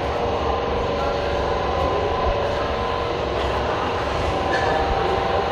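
Steady mechanical drone and hum of a car accessories shop, with faint steady tones running through it.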